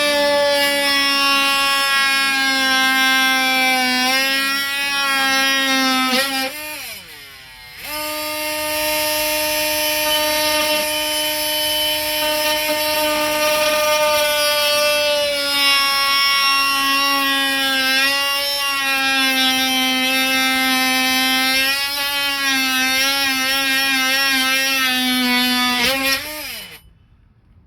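Small high-speed power tool cutting the opening for a 12 V accessory panel, running with a steady high whine. It is switched off about six seconds in and winds down, starts again about a second later, and winds down to a stop near the end.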